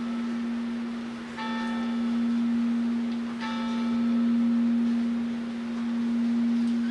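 Sanctus bell rung at the elevation of the host: two strikes about two seconds apart, each ringing on with several clear overtones, over a steady low ringing tone that carries on throughout.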